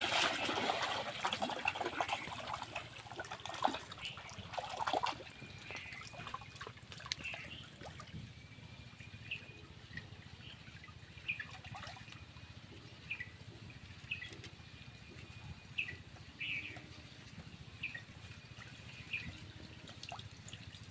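Shallow pond water splashing and sloshing as a bamboo polo fish trap is plunged and worked in it, loudest in the first five seconds with a few sharp splashes. Quieter sloshing and trickling follows, with short high chirps repeating every second or so.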